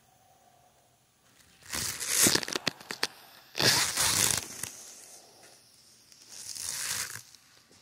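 Rustling and crinkling plastic in three bursts, about two, four and seven seconds in, each lasting about a second, with quiet between them.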